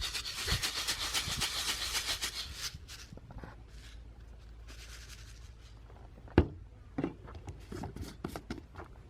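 Gritty rubbing and scraping of a fertilizer-and-gunpowder mixture being mixed in a container, busiest for the first three seconds and then quieter. There is one sharp knock about six seconds in, then a few lighter taps.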